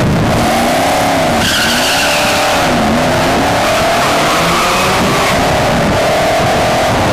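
Two drag cars launching and accelerating hard down the strip, their engines rising and dropping in pitch through the gears. A high squeal joins in from about a second and a half in to near three seconds.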